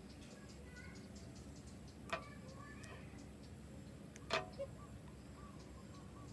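Two sharp clicks, one about two seconds in and a louder one a little after four seconds, the second followed by a smaller click. A faint background with soft, short chirps lies under them.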